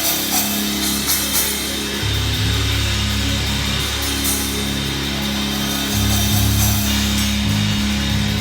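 Band instruments at a sound check: long, deep bass notes held for a few seconds each and changing pitch twice, over a steady sustained tone, with a few cymbal hits in the first second or so.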